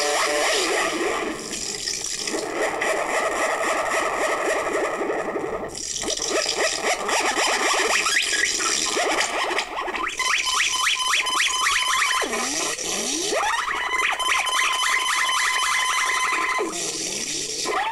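Handmade analog modular synthesizer playing a noisy, glitchy sequenced patch: a hiss-laden drone with fast repeating stepped notes, and a pitch that swoops down and back up a few times in the second half.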